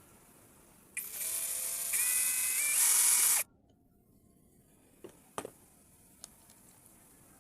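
A small electric motor whirs for about two and a half seconds, stepping up in pitch twice before it cuts off suddenly. A few light clicks follow.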